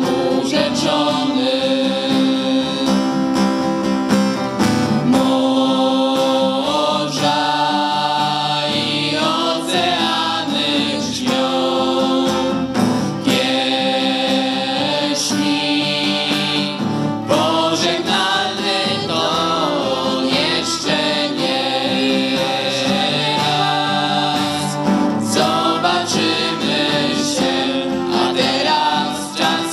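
Live band performance: several voices singing a song together into microphones, accompanied by acoustic guitar and violin.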